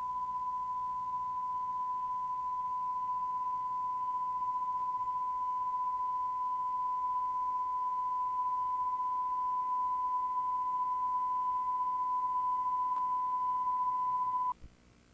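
Steady 1 kHz line-up test tone of the kind recorded with colour bars on videotape: a single unchanging pure pitch that cuts off sharply near the end, with a faint click a moment before it stops.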